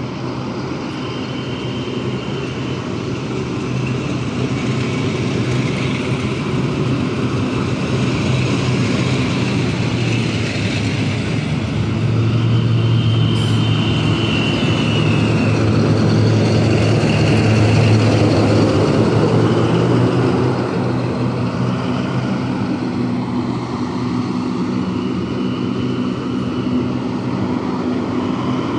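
Diesel-hydraulic locomotive's engine running under load while shunting, building up louder until about two-thirds through and then easing off, with short high squeals now and then.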